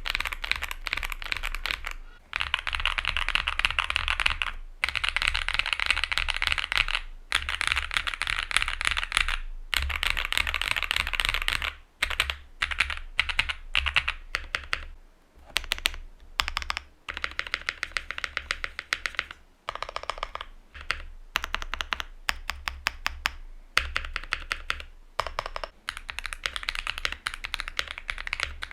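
Typing on a Luminkey65 mechanical keyboard with lubed, filmed Mode Obscura and NK Cream+ Copper switches on an FR4 plate, played back to back: a bright, clacky sound. Fast runs of keystrokes are broken by short pauses, with stretches of slower single presses.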